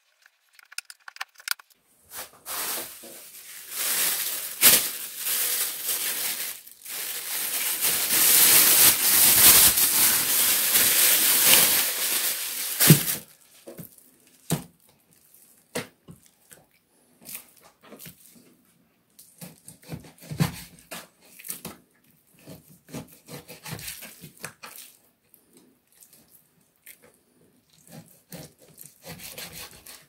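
Knife work on raw pork ribs on a wooden cutting board: about ten seconds of loud, continuous scraping and rustling, then scattered knocks and taps of the knife and meat on the board.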